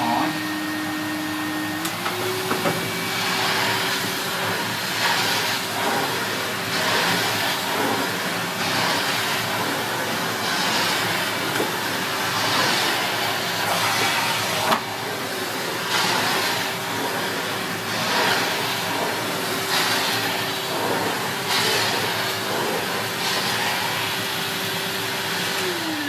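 Numatic Henry HVR200A 1200 W tub vacuum cleaner running on high, its motor whine stepping up in pitch about two seconds in and then holding steady. Over it, the floor head swishes back and forth across cut-pile carpet, a swell of hiss nearly every two seconds.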